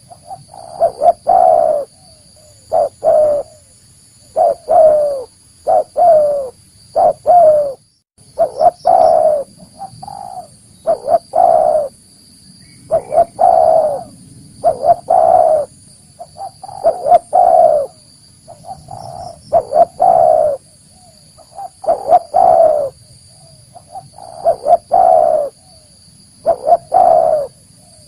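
Spotted dove (tekukur) cooing over and over: phrases of a few short, low, rolling notes, one about every two seconds. A faint steady high hiss lies underneath.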